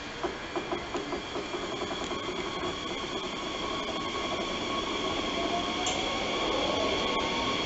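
Bombardier Talent 2 electric multiple unit pulling away from a platform. It gives a run of sharp clicks in the first second or so, then a motor whine that rises in pitch as the train gathers speed, over a steady high electric hum.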